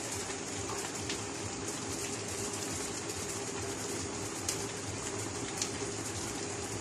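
A pot of meat sauce simmering on a gas stove burner: a steady hiss with a low hum underneath and a few faint clicks.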